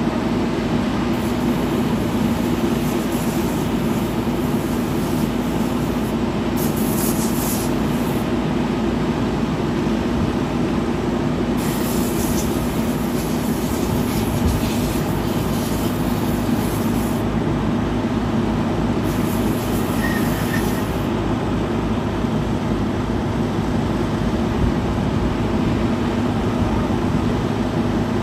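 Fire engine's diesel engine running steadily, a loud continuous drone with a constant hum. About halfway through, a deeper hum and a low throb join it.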